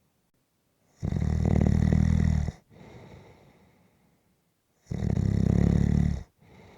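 Snoring: two long, loud snores about four seconds apart, each followed by a softer breath out.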